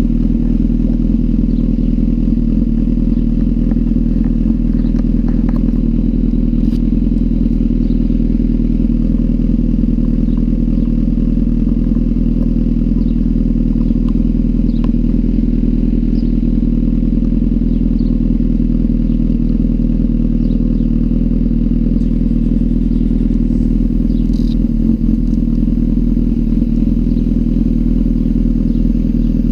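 Honda CBR1000RR inline-four engine idling steadily through an aftermarket undertail exhaust. A few faint clicks come near the end.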